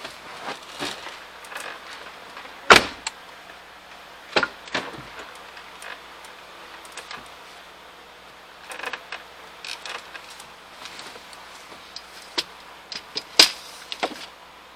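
Driver's door of a 2017 Ford F250 pickup being opened and shut, with latch clicks and heavy door thuds. The loudest thuds come about three seconds in and again near the end.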